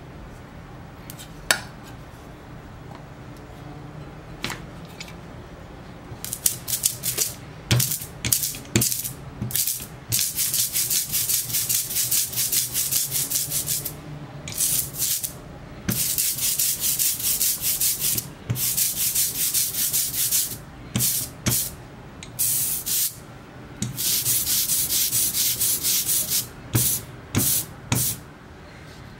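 Rubber brayer rolling out thick black printing ink on a glass slab, the tacky ink giving a sticky hiss in runs of a few seconds with short gaps between, starting about six seconds in. Before that come a few light clicks of the ink spatula.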